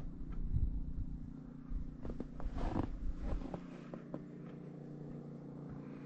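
Footsteps in deep snow, with a few scuffs and bumps in the first three seconds or so, over a steady low mechanical hum.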